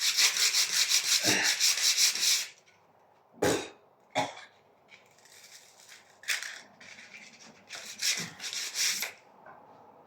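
Fast back-and-forth rubbing strokes on a surface, about seven a second for a couple of seconds, then two knocks, then a few shorter bursts of rubbing.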